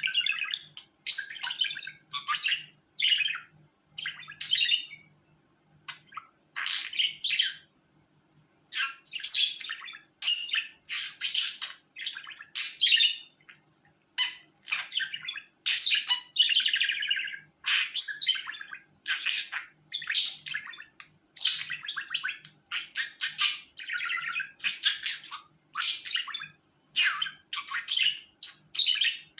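Budgerigar chirping and warbling in quick runs of short, scratchy chirps and squawks, with brief pauses between the runs.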